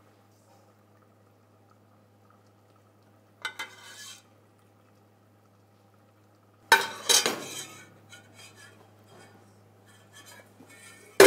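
Metal ladle knocking and scraping against a stainless steel pot while sauce is served into a ceramic bowl: a short clatter a few seconds in, a sharp loud knock with rattling about seven seconds in, and another sharp clank right at the end, over a low steady hum.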